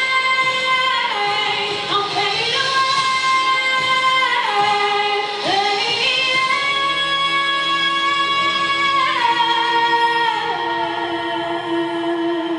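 Music with a female voice singing long held notes, sliding between pitches.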